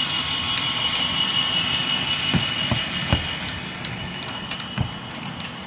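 OO gauge model diesel freight locomotive with a DCC sound decoder running, its diesel engine sound playing from the loco's small speaker, with a steady high whine that slowly fades. Several sharp clicks, about two and a half seconds in, twice more around three seconds, and once near five seconds, come from wheels crossing rail joints and points.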